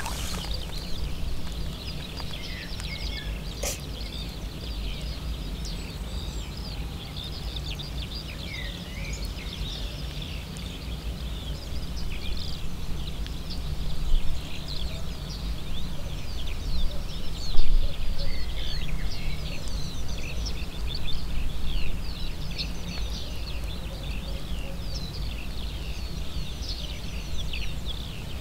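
Wild birds singing and chirping in a busy chorus of short calls, over a steady low background rumble.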